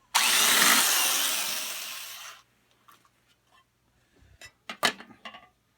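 Power drill boring a 1/4-inch hole through an aluminum diamond plate fender, running for about two seconds and fading before it stops. Then a few light clicks and knocks of handling.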